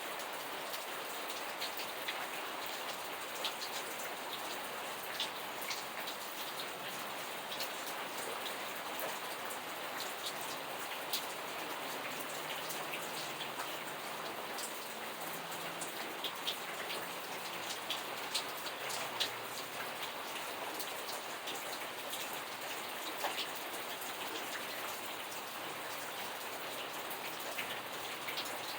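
Steady rainfall, a constant hiss with many individual drops ticking sharply on a surface.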